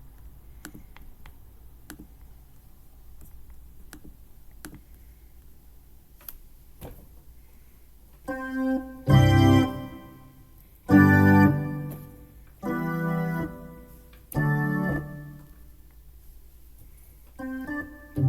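Electronic keyboard playing a series of held chords, each about a second long with short gaps between, starting about eight seconds in. Before that there are only a few faint clicks.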